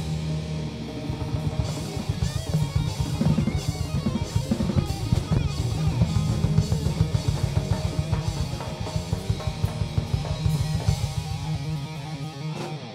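Live band music led by a drum kit played hard, with rapid strikes on drums and cymbals over a held low note.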